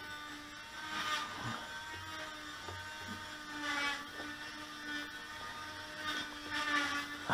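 Faint handling noise of hands working at a model yacht's hull during a winch installation: soft scrapes and rubs that swell about a second in, near the middle and near the end, over a steady faint hum.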